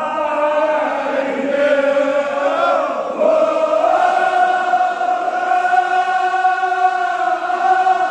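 Men's voices chanting a Kashmiri marsiya (mourning elegy) together, settling into one long held note about three seconds in.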